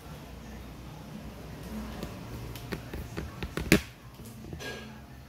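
A few short, sharp clicks and taps from handling food and tableware during a meal, bunched between about two and a half and four seconds in, the loudest just before the four-second mark.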